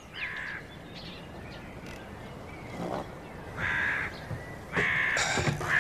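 Crows cawing: several harsh caws spread across the seconds, the last two close together near the end, with a few fainter, thinner bird chirps about a second in.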